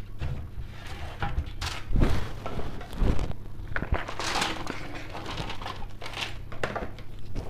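Seasoned crumbled tofu mixed with black beans and corn being tipped and scraped out of a bowl into a baking tray: irregular rustling scrapes, with dull knocks about two and three seconds in.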